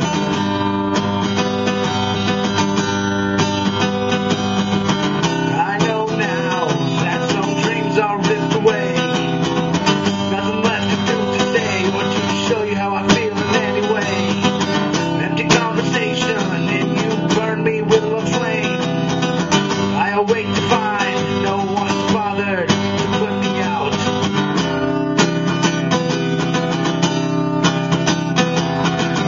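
Live band music led by an acoustic guitar being strummed, with a wavering melodic line running over it from about five seconds in until about twenty-four seconds.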